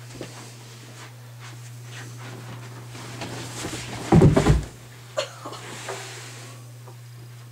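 A person tumbling off a bed onto the floor: bedding rustles, then a heavy thud about four seconds in. A steady low hum runs underneath.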